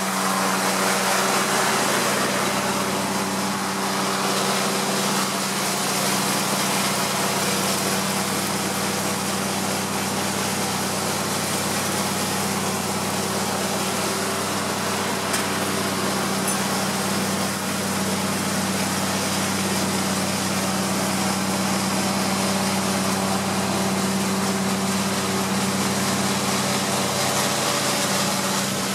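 Honey bees buzzing around an opened hive: many bees together make a steady, even hum.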